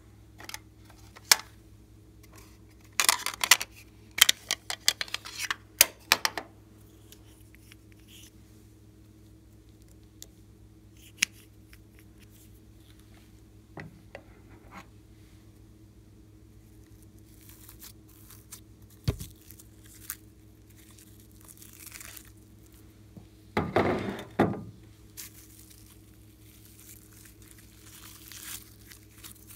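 Glossy slime with glitter and toppings being handled, making short bursts of sticky crackling and tearing. The loudest bursts come a few seconds in and again about three-quarters through, with quiet stretches between.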